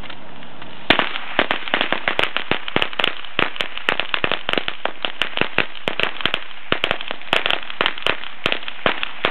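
A string of firecrackers going off: a rapid, irregular volley of sharp bangs that starts about a second in, the first bang the loudest.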